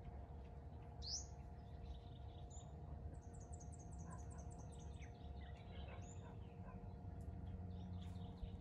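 Small birds chirping faintly: a sharp rising chirp about a second in, then a quick run of about ten short high notes a couple of seconds later, with a few scattered chirps after, over a steady low rumble.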